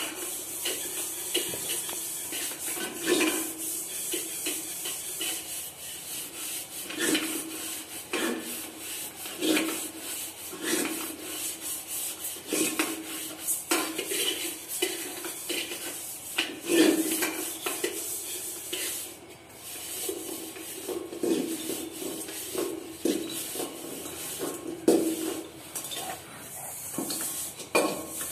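Stainless steel bowls and plates being scrubbed and rinsed by hand, with irregular scraping and clanking knocks of metal on metal and floor, many leaving a short ring.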